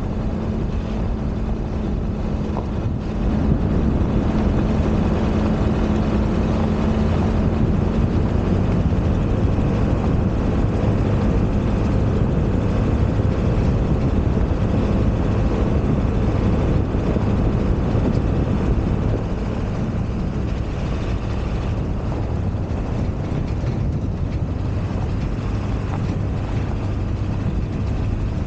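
Ford F-250 pickup driving on a gravel road: a steady engine drone under tyre and wind noise, louder from about three seconds in.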